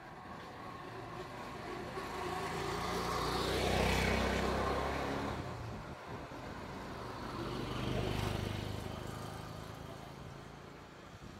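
Two motor vehicles passing on a road one after the other, each engine and its tyre noise swelling and fading; the first, about four seconds in, is the louder, and the second passes about four seconds later.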